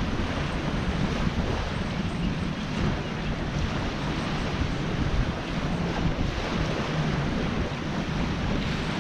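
Steady wind buffeting the microphone over small waves washing onto a sandy shore.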